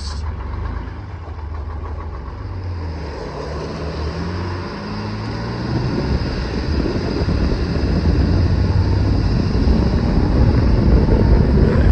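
Old Detroit diesel truck engine running, freshly started for the first time in about two years. Its revs climb a few seconds in, and from about halfway it runs louder and rougher.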